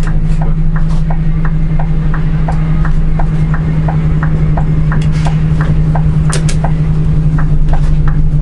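Scania coach's diesel engine running under way, heard from the driver's seat as a steady low drone, with a quick, even ticking about three times a second over it.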